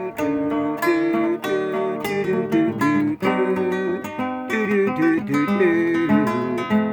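Acoustic guitar playing an instrumental passage alone: picked melody notes ring over a moving bass line, with occasional strums.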